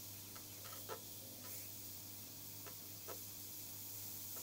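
Faint, steady hiss of air from an Iwata Custom Micron CM-C airbrush spraying fine detail, over a low steady hum, with a few faint ticks.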